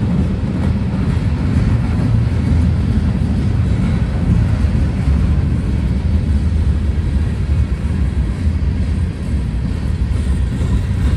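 Freight train cars, bulkhead flatcars and gondolas, rolling past: a steady low rumble of steel wheels on the rails.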